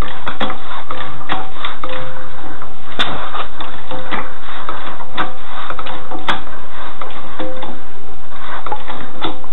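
Car jack being pumped by its long handle to lift the car: sharp clicks roughly once a second, with brief squeaks between strokes.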